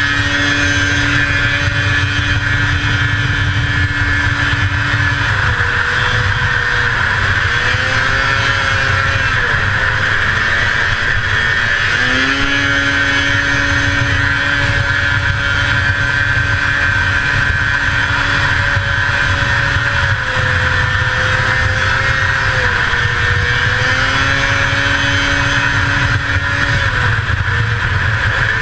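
1981 Arctic Cat El Tigre 6000's 500cc two-stroke engine running flat out, holding a high steady note that sags in pitch several times and climbs back, over a constant rush of wind and track rumble.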